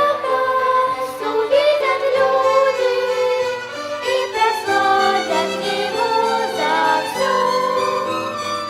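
Violin ensemble playing a slow melody in long held notes, several parts sounding together.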